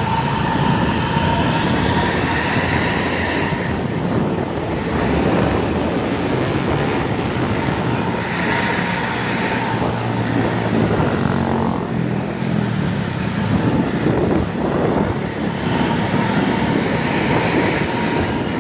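Road traffic with large vehicles passing: continuous engine rumble and road noise. A steady high tone is held during the first few seconds.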